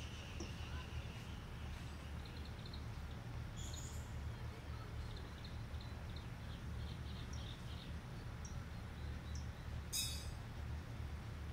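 Small birds chirping in short, scattered calls, a run of them in the middle, over a steady low rumble. A single brief sharp click about ten seconds in.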